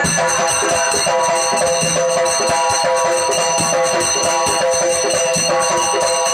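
Instrumental passage of Marathi folk music: sustained held tones over fast, dense rattling percussion, without singing.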